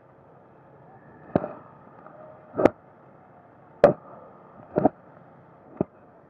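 Five sharp knocks spaced about a second apart, over a faint, muffled steady background.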